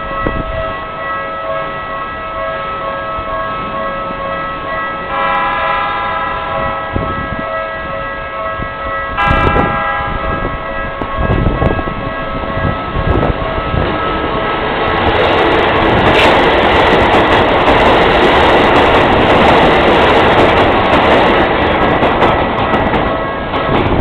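Japanese level-crossing alarm bells ringing steadily, with another set of tones sounding along with them for about four seconds near the five-second mark. A Keikyu 1500 series electric train then runs through the crossing, its passing noise swelling from about fourteen seconds in and covering the bells for most of the rest.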